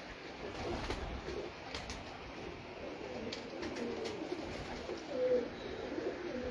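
Domestic pigeons cooing in a wire-mesh loft: low, wavering coos that come thicker in the second half, with a few faint knocks.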